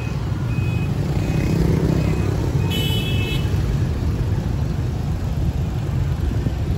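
Riding a motorbike in street traffic: a steady low rumble of engine, road and wind, with a few short high beeps in the first two seconds and a brief vehicle horn toot about three seconds in.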